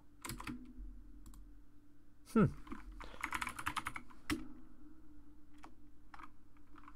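Typing on a computer keyboard: scattered single key presses, with a quick run of keystrokes about three seconds in. A brief vocal murmur about two and a half seconds in.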